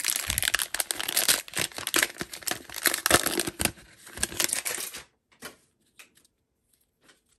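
Foil trading-card pack wrapper being torn open and crinkled by hand: dense crackling and tearing that stops about five seconds in, followed by a few faint clicks as the cards are handled.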